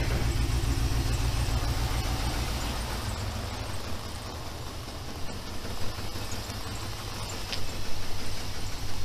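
Chrysler 4.7-litre V8 of a 2001 Jeep Grand Cherokee running roughly with an uneven exhaust pulse: the engine has a severe misfire and a valve-train knock. It fades as the Jeep drives slowly away.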